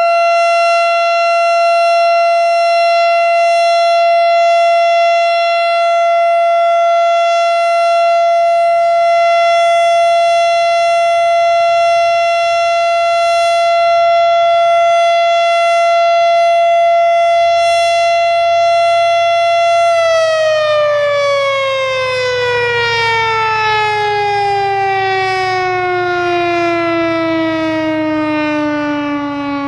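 Federal Signal STH-10 electromechanical warning siren sounding a steady single-tone full alert. About twenty seconds in, it begins winding down, its pitch falling steadily and slowing as it drops.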